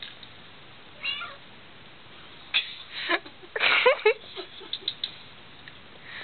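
A domestic cat meowing: one short call about a second in, then a quick cluster of several short calls and clicks in the middle, the loudest just before the two-thirds point.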